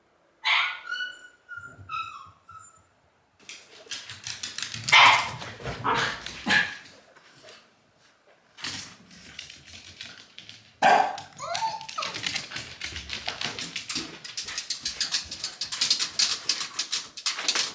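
Shiba Inu whining and giving short high cries, a plaintive sound of a dog left alone by its owner. Between the cries and toward the end comes a fast, continuous run of scratchy clicking noise.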